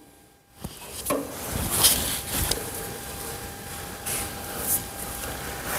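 Handling noise from a camera being moved by hand: rubbing with scattered light knocks, starting about half a second in, over a faint steady tone.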